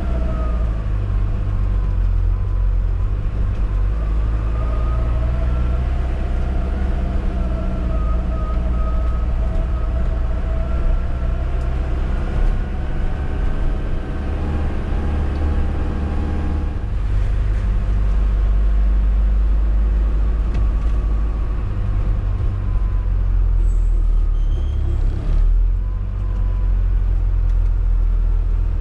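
Classic Hymer motorhome driving at town speed, heard from inside the cab: a steady engine and road hum, its pitch rising and falling now and then as the vehicle slows and picks up again.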